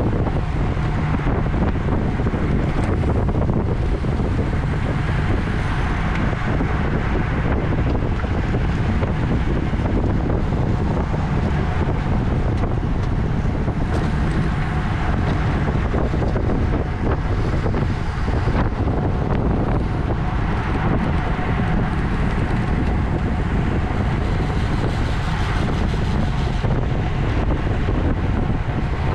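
Steady wind rush on the microphone of a camera riding on a racing bicycle at speed.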